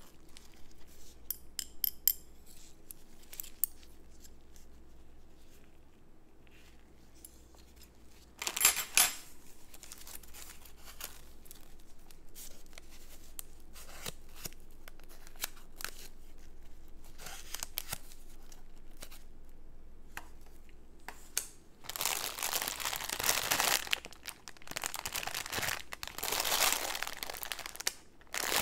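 Plastic packaging crinkling and being torn open: scattered small clicks and handling sounds early on, a sharp rip about nine seconds in, then long stretches of loud crinkling and tearing in the last several seconds.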